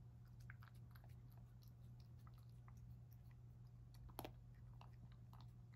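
Cat eating soft food from a ceramic bowl: faint wet chewing and licking clicks, with one sharper click a little after four seconds in, over a low steady hum.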